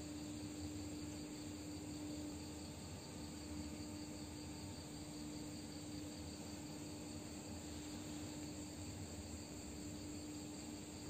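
Quiet steady room tone with a constant low hum and no distinct events.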